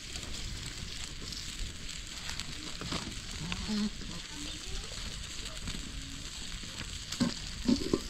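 Chopped tomatoes sizzling steadily in a pan over an open wood fire, with a few louder knocks near the end.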